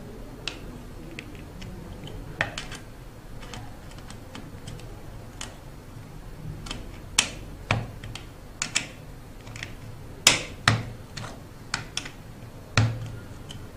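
Irregular small clicks and light knocks of hands handling the hexapod robot's metal frame, servos and cable parts, with a few sharper knocks in the second half.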